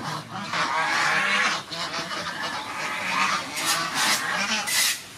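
Farmyard birds honking, a run of several nasal calls one after another.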